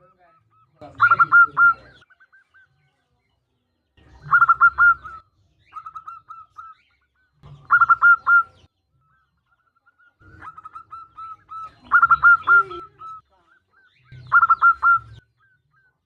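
Zebra dove (perkutut) calling: five loud cooing phrases, each a quick run of three or four notes, spaced a few seconds apart, with soft short coos in between. It is offered as a female's call to draw a male into singing.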